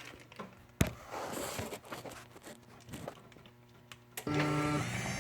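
A few scattered clicks and knocks, then about four seconds in the Skylink side-mount jackshaft garage door opener's motor starts and runs with a steady hum and whine.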